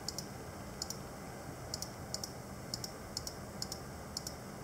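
Sharp clicks from working a computer's mouse and controls. They come in quick pairs, about two a second and irregularly spaced, over a steady low background hum.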